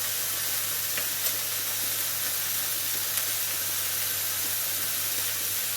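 Pork liver pieces sizzling steadily in a hot frying pan, with a few faint light clicks.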